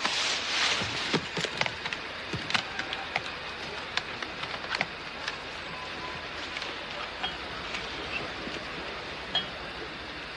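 Outdoor ambience: a steady hiss with scattered sharp clicks, knocks and clinks, thickest and loudest in the first half and thinning out later.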